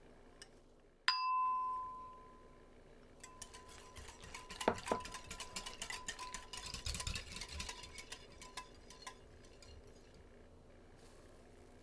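A utensil clinking against a mixing bowl. One sharp strike rings on for about a second, then from about three seconds in comes a long run of rapid clinking and scraping as batter is stirred, stopping near the end.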